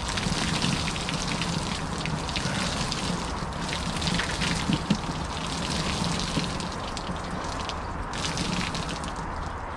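Water overflowing the rim of an overfilled wheelie-bin ice bath and pouring and splashing down the bin's sides onto the ground, a steady spattering like heavy rain that eases near the end.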